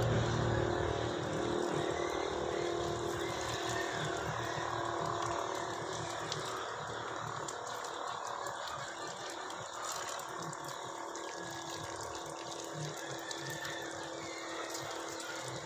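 Water pouring from a plastic watering can onto potted succulents and their soil, a steady trickling splash.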